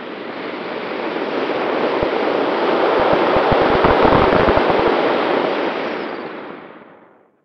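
Wind rushing over a camera mounted on the wing of an ASW 19 glider in flight. The rush swells to its loudest about three to five seconds in, with low buffeting thumps of wind on the microphone, then dies away near the end.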